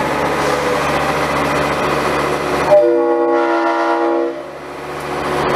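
A moving train runs with steady rumble and rail noise. About three seconds in, the train's horn sounds once: a chord of several notes held for about a second and a half.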